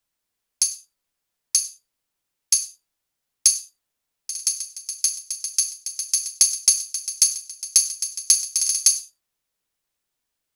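Tambourine sound from a Roland SPD::ONE Percussion pad struck with drumsticks: four single hits about a second apart, then a quick rhythmic tambourine pattern for about five seconds.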